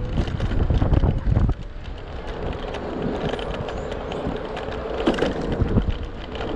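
Wind buffeting the microphone of a moving electric scooter, heavy for the first second and a half, then easing to a quieter rush of road noise with a faint steady hum and a few small clicks.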